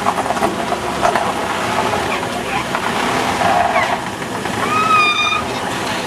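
Busy outdoor exhibition ambience: a steady hubbub of background noise and distant crowd chatter, with a short whistle-like tone about five seconds in.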